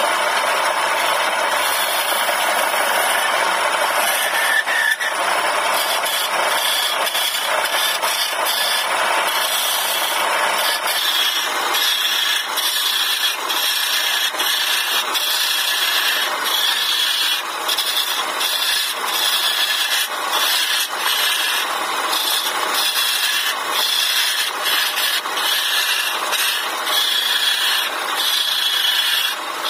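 Wood lathe running while a hand-held turning chisel cuts a spinning wooden spindle: a continuous rasping, scraping hiss of the cut over the machine's hum. It becomes higher-pitched and more uneven about ten seconds in.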